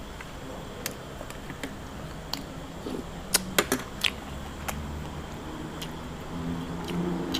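Eating utensils clinking against a bowl. A few sharp metallic clinks come in a quick cluster about three and a half to four seconds in, with lighter clicks scattered around them.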